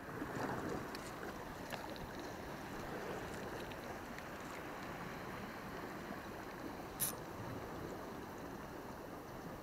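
Sea water washing steadily against shoreline rocks, with one short sharp click about seven seconds in.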